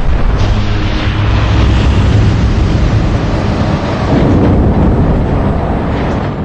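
Jet engine on a test stand running at high power in a fan blade-off test: a loud, steady roar with a heavy low rumble, dying away at the very end.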